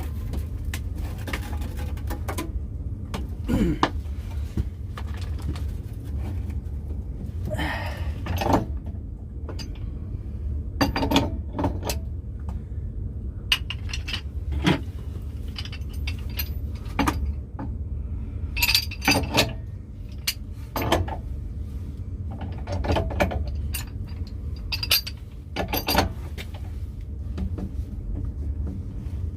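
Metal tools and pipe fittings clinking and knocking at irregular intervals as the old pressure tank's plumbing is taken apart, over a steady low hum.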